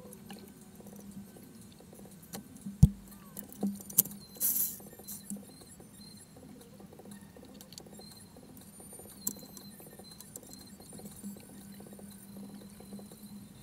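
Faint clicks, taps and light scrapes of hands working at the drive belt and pulleys of a stopped Yanmar 3JH2E marine diesel, with one sharp click about three seconds in and a short rustle about a second and a half later, over a steady low hum.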